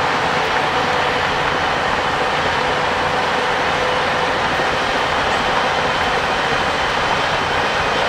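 Shantui DH17 crawler bulldozer working through dirt: its diesel engine runs steadily under load while its steel tracks clatter as it moves.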